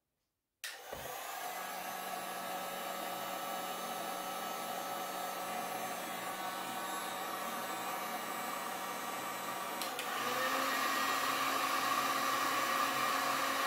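Electric heat gun starting up just under a second in and blowing steadily, a fan whir with a few steady tones. About ten seconds in there is a click, and it runs louder with a changed tone.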